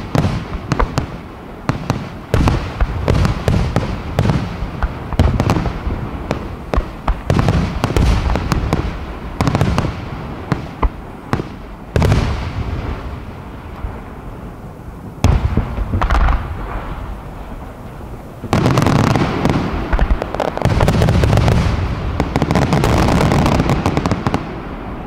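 Aerial firework shells bursting overhead in rapid succession, many sharp bangs with echoing rumble between them. From about eighteen seconds in the bursts merge into a dense, continuous barrage.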